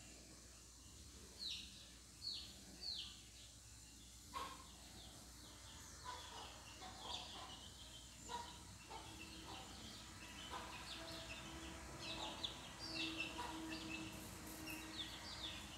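Faint birds chirping in the background: short chirps that fall in pitch, coming irregularly and more often in the second half.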